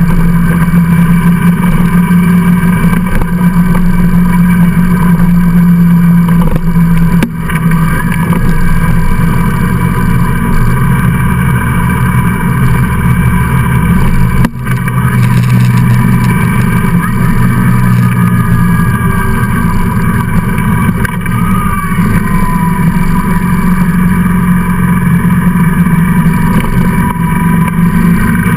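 Motorcycle engine running steadily while riding, with a short dip in level twice.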